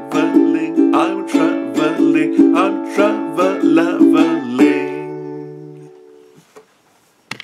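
Ukulele strummed in a brisk, steady rhythm, ending about four and a half seconds in on a final chord that rings and fades away. A few sharp clicks come near the end.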